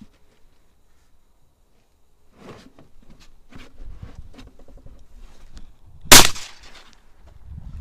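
Dry reeds rustling and clicking as a hunter rises and swings a shotgun, then a single loud shotgun shot at a flying duck about six seconds in.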